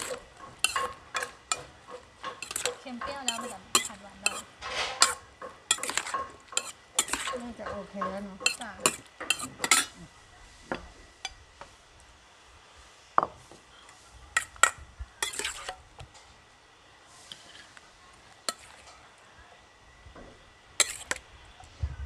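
Metal spoon stirring and tossing a sausage salad in a stainless steel mixing bowl, scraping and clinking against the metal. Clinks come thick and fast for about ten seconds, then only now and then.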